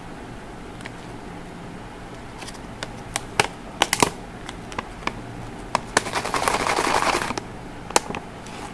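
A cardboard gift box with a clear plastic window is handled and turned over in the hands, giving scattered sharp clicks and taps. A crinkling rustle of about a second comes about two-thirds of the way through.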